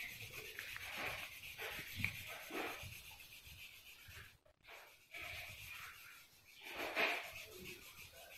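Pencil shading on drawing paper: repeated short strokes of graphite rubbing across the sheet. The sound drops out briefly about four and a half seconds in.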